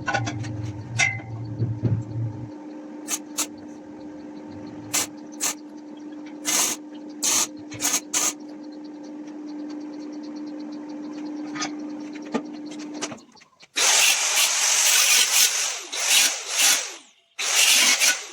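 Wood being worked with hand tools: a string of sharp knocks and clicks over a steady low hum, then about four seconds of loud scraping or rasping on wood near the end.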